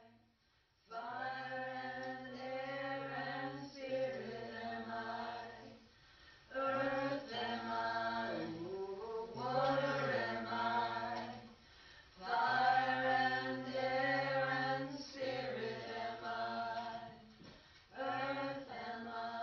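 Chanted vocal music: slow sung phrases of about five seconds each over a steady low drone, with short breaks between phrases, starting about a second in.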